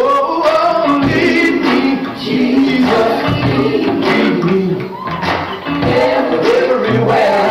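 A recorded gospel song playing loudly, with voices singing over the band and its percussion.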